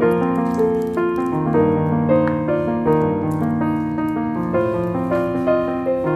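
Background piano music: a melody of single notes over held lower notes, changing pitch two or three times a second at a steady, even level.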